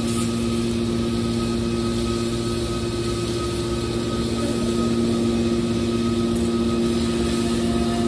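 Hydraulic metal baler's power unit (electric motor and pump) running steadily, a constant hum with two strong low tones.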